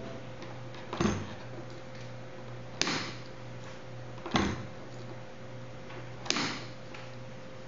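Four sharp clacks about one and a half to two seconds apart, each with a brief ring, over a steady electrical hum, as the magnetic lock kit is tested once powered up.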